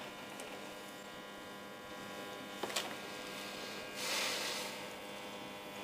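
Steady electrical hum and buzz on an old film soundtrack, with a faint click a little before the three-second mark and a soft rush of noise about four seconds in.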